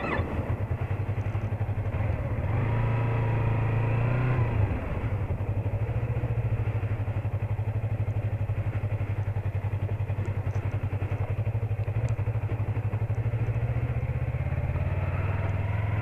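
Yamaha MT-03 motorcycle engine running at low speed while the bike is ridden slowly, with a short rise in engine sound between about two and four and a half seconds in, then settling back to a steady running note.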